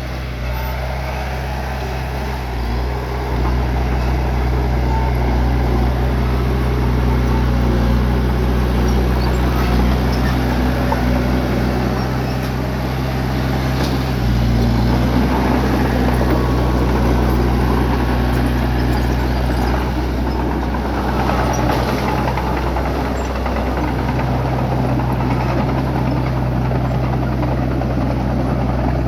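Bulldozer's diesel engine running steadily, growing louder about three seconds in, its pitch shifting a few times.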